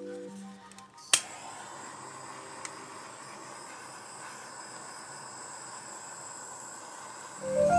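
Handheld butane torch clicking alight about a second in, then its flame hissing steadily as it is passed over wet acrylic paint to pop surface bubbles.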